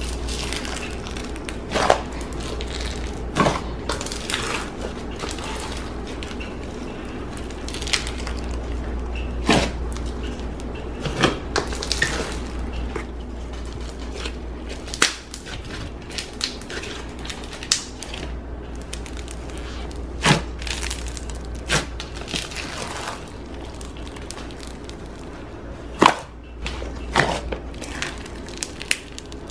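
Hands squeezing and kneading thick, bubbly sugar-scrub slime in plastic tubs, giving irregular crackles and pops, with a steady low hum underneath.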